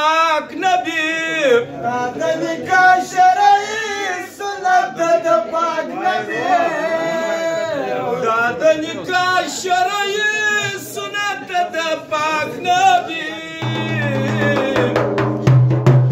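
A man singing a Pashto bandar folk song solo in a high, strained voice, with sharp taps on an upturned steel basin (tali) keeping time. About two seconds before the end the sound changes abruptly to a steady low hum with quick, even drum strikes.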